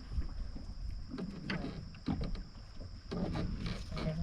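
Wind and water around a small fishing boat, with a low rumble and scattered knocks and clatter of work on board.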